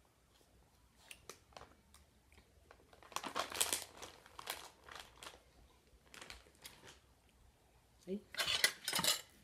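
Plastic bag of shredded cheese crinkling and rustling in irregular bursts as it is shaken and handled.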